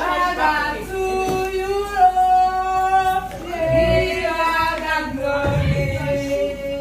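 Women singing together, holding long notes that step from one pitch to the next.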